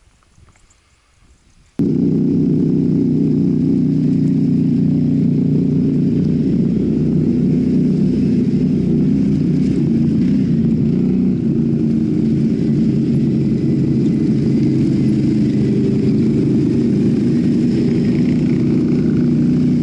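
ATV engine running steadily at low revs close to the microphone, cutting in suddenly about two seconds in after a brief quieter stretch.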